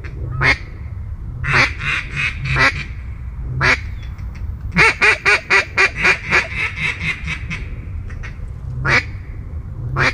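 Mallard quacking: loud single quacks, a run of four, then a quick run of about a dozen quacks in the middle, and two more single quacks near the end, over a low steady rumble.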